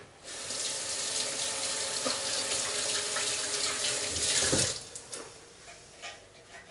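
Kitchen tap running into the sink while hands are rinsed under the stream. The water shuts off after about five seconds, followed by a few small clicks.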